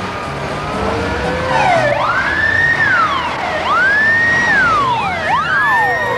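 Fire engine sirens wailing, their pitch rising and falling in cycles of about two seconds. Several overlap from about a second and a half in.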